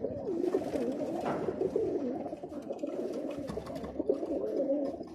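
Many roller pigeons cooing at once, their wavering coos overlapping without a break.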